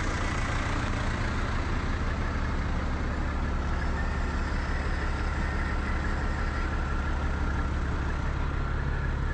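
Truck engine idling steadily, a low, even hum.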